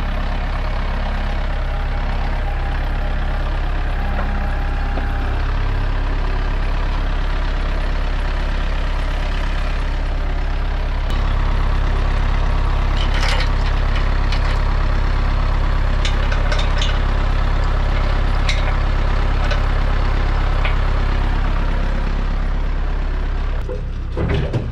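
Kubota compact tractor's diesel engine running steadily, getting louder about eleven seconds in. Short metal clinks of a chain being handled at a trailer hitch come a few times over the engine.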